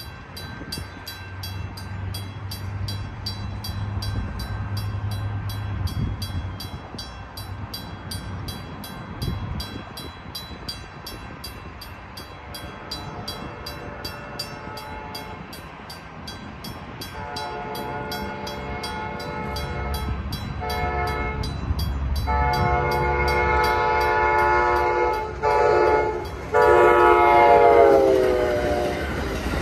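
Grade-crossing bell ringing at a steady two to three strikes a second. Past the halfway point a passenger train's horn sounds four blasts for the crossing, the last one dropping in pitch as the train reaches the crossing, over the rising rumble of the approaching train.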